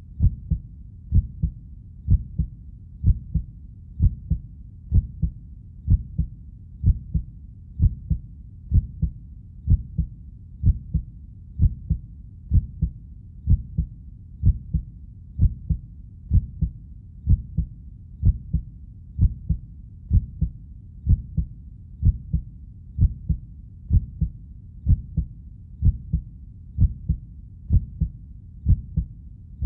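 Human heartbeat, a steady, regular lub-dub double thump at about one beat a second, deep and low.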